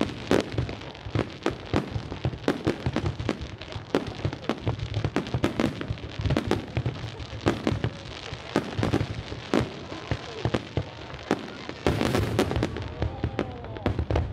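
Fireworks display: a rapid, irregular barrage of shell bursts and bangs, several a second, thickest and loudest about twelve seconds in.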